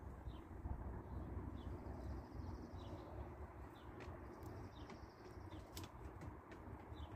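Small birds chirping: short falling calls about once a second, with a higher trill now and then, over a low steady rumble.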